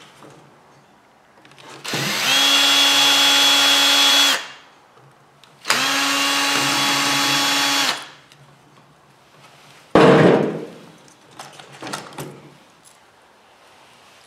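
Cordless drill-driver run twice, a little over two seconds each, spinning up to a steady whine as it backs out the two screws holding a microwave's cooling-fan motor. A single knock about ten seconds in, followed by a few light clicks.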